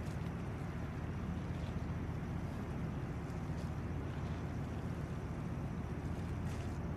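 Steady low rumbling noise that keeps an even level throughout.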